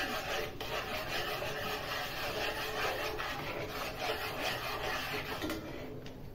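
A metal spoon scraping and stirring around a frying pan of chicken in thick sauce, in repeated rasping strokes. It stops shortly before the end.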